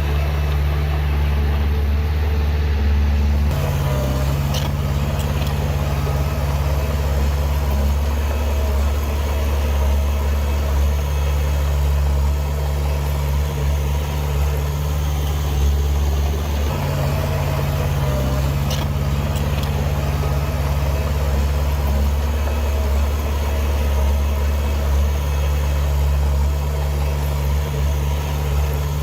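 Heavy diesel engine of earthmoving machinery running steadily at low revs, its note shifting slightly a few seconds in and again about halfway.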